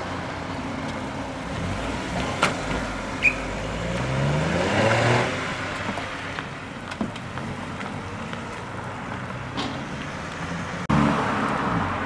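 Car engines driving off at low speed. One accelerates with a rising note about four to five seconds in, and a louder engine cuts in near the end.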